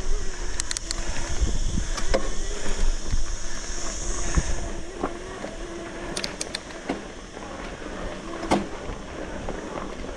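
Electric mountain bike's motor whining steadily under pedal assist. Sharp clicks and knocks come from the bike jolting over a rocky trail, over a low wind rumble on the microphone; the whole gets quieter about halfway through.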